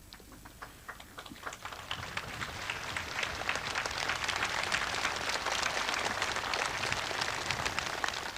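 Large crowd applauding: a few scattered claps at first, swelling within about three seconds into dense, steady applause.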